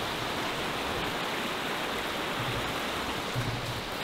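Shallow, rocky mountain stream rushing steadily over stones and small rapids.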